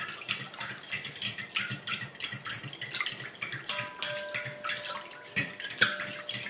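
Metal spoon stirring a milk-and-yeast mixture in a glass bowl, clinking and scraping against the glass about four times a second.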